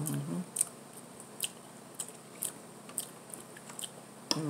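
Close-up mouth sounds of a person eating: wet chewing and lip smacking, about two smacks a second, with a short closed-mouth hum at the start and again near the end.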